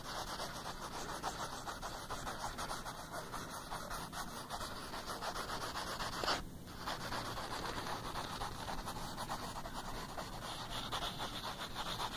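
Wooden graphite pencil scratching rapidly back and forth on drawing paper, shading in quick strokes. There is a brief pause about halfway through.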